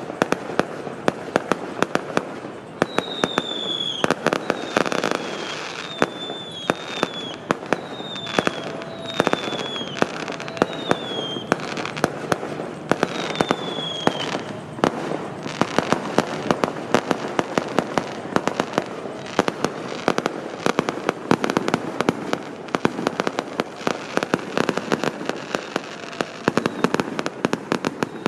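Fireworks and firecrackers going off in dense, rapid bangs and crackles. Several short high whistles sound among them, one after another, in the first half.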